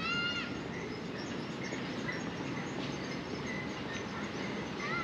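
Short, meow-like animal calls, each rising then falling in pitch: one at the start and another near the end, with faint short chirps between over steady background noise.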